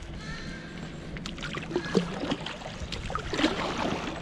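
Water splashing and lapping around a plastic sit-on-top fishing kayak, with a few small knocks scattered through it.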